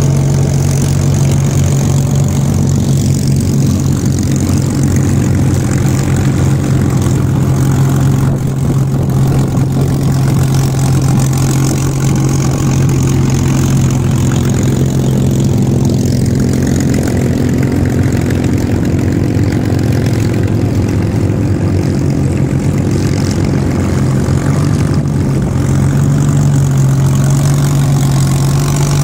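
Supermarine Spitfires taxiing past one after another, their V12 piston engines running steadily at low taxi power with a loud, even low drone.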